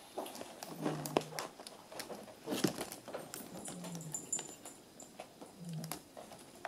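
A kitten clawing at a scratching post: irregular scratchy rasps and clicks, with a few short low hums in between.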